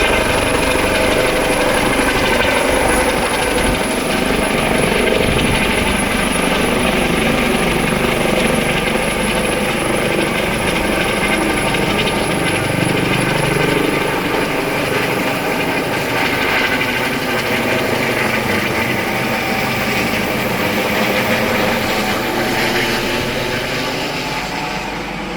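Coast Guard helicopter's turbine engine and rotors running with a steady whine of several tones. The pitch sags and recovers about two-thirds of the way through, and the sound grows quieter near the end.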